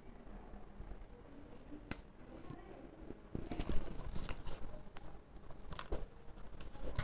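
A metal spatula scraping and tapping against a non-stick kadai while stirring onion, garlic and green-chilli paste as it fries. Irregular scrapes and taps, busier and louder in the second half.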